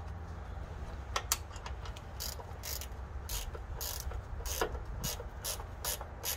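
Ratcheting wrench on the truck's oil-pan drain plug, its pawl clicking on the back-strokes as the plug is run in and tightened. The clicks come about two a second, starting about two seconds in.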